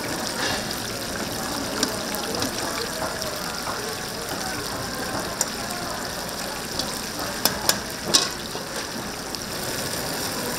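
Whole chickens frying in a vat of hot oil: a steady sizzle, with a few sharp clicks about three quarters of the way through.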